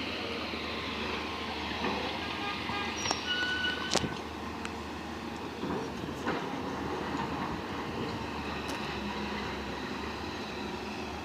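Heavy construction machinery running steadily, with a few short metallic squeals and a sharp clank about four seconds in.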